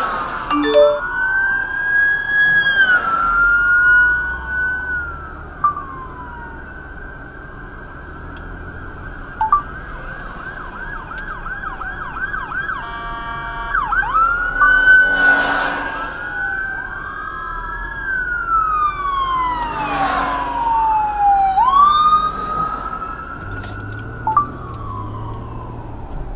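Several emergency-vehicle sirens sounding at once, overlapping slow wails, with a stretch of fast yelping sweeps near the middle.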